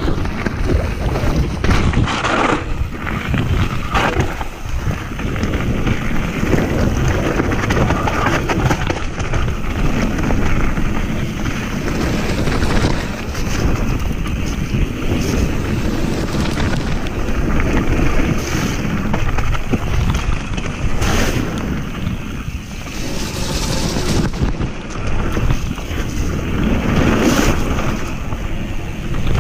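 Santa Cruz Heckler mountain bike descending a wet gravel and mud trail at speed: a steady rumble of tyres on the loose surface and rattling of the bike, with a few sharp knocks over bumps, all under wind buffeting a GoPro's microphone.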